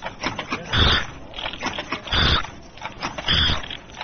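Automatic KF94 mask making machine cycling: three loud, noisy bursts come back in a steady rhythm, about one every second and a quarter, with small clicks between them.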